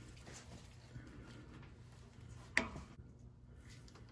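Needle-nose pliers working a cotter pin in a castle nut on steering linkage: faint metal ticks, with one sharp click about two and a half seconds in.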